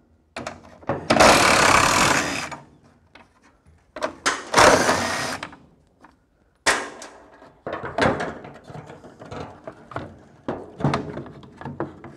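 Cordless drill spinning an 11 mm socket in two short runs of a second or two each, backing out the bolts that hold a wiper motor to its linkage bracket. About seven seconds in, the sound changes to the clicks and clanks of the loosened metal wiper linkage being handled.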